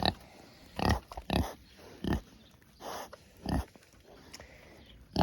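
Kunekune pigs grunting: a string of short grunts, roughly one every half second to second.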